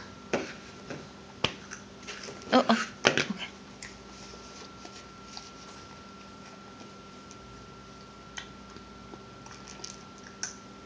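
Sharp clicks and knocks of a plastic plate and Cheerios being handled, with a cluster of louder knocks about two and a half to three and a half seconds in and sparser light clicks after. A faint steady hum underneath.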